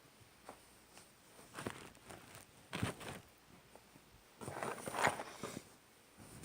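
Irregular rustling, scraping and soft knocks of fabric and objects being handled close to a camera tucked in a backpack. The loudest cluster comes about five seconds in.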